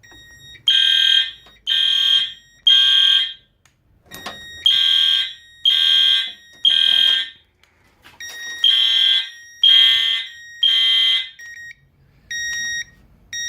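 Fire alarm horns sounding in the temporal-three evacuation pattern, three blasts then a pause, repeated three times, set off by a pulled manual pull station. After the third group the horns stop and shorter, quieter beeping carries on to the end.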